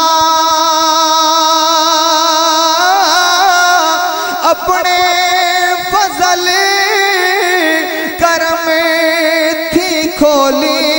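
A man singing a naat through a microphone and loudspeakers, drawing out long, wavering melismatic notes.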